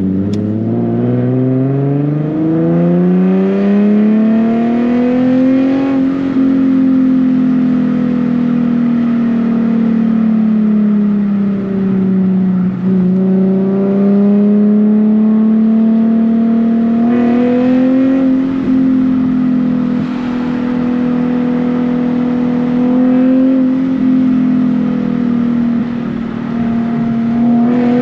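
Nissan Z sports car's V6 engine and exhaust accelerating, its pitch climbing steadily over the first six seconds. It then holds a steady high drone at speed, dipping and rising a little as the throttle changes.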